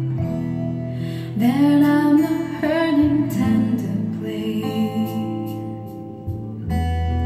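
Recorded music, a song with a singing voice, played through a pair of Onkyo D-502A two-way bookshelf speakers with 20 cm bass drivers. A steady low bass note comes in near the end.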